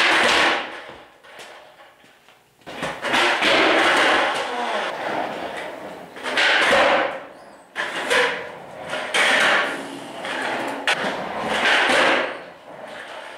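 Skate wheels rolling over a concrete garage floor in repeated surges of a second or two, with sharp knocks in between.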